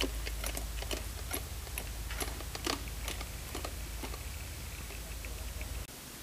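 Irregular sharp clicks and ticks, about three a second, over a low rumble of wind on the microphone. The clicks fade out about four seconds in, and near the end the rumble cuts off abruptly, leaving a steady hiss.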